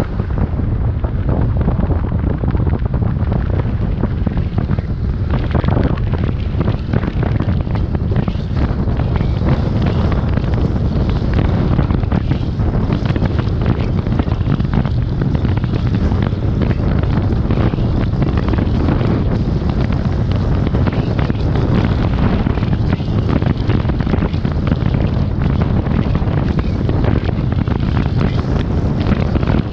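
Wind buffeting the microphone: a loud, steady low rumble with gusty rushing on top and no pauses.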